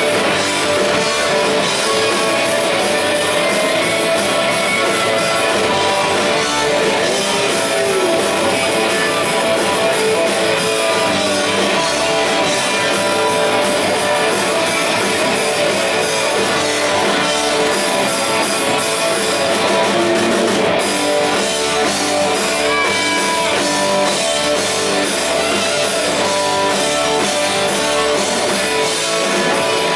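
Live rock band playing loudly and steadily: electric guitars over bass and drum kit.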